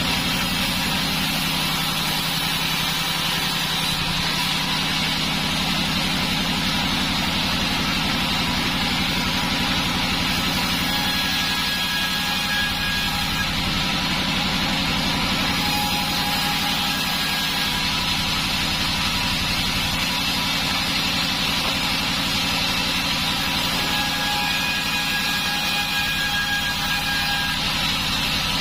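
Large band sawmill running steadily, with faint high whines coming and going several times.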